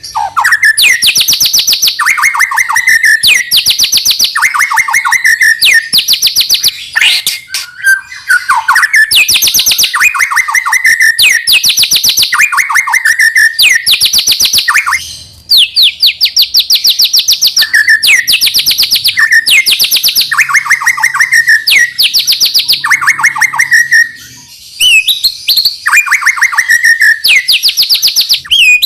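White-rumped shama singing loudly in a long run of rapid, machine-gun-like trilled phrases, about a second each, alternating between higher and lower phrases, with a few short pauses.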